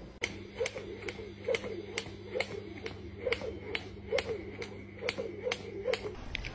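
A steady beat of sharp clicks or claps, about two a second, over a low steady hum.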